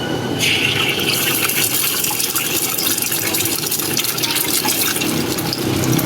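Food sizzling and crackling in hot oil in a wok as fried rice is cooked, a dense hiss that starts abruptly about half a second in.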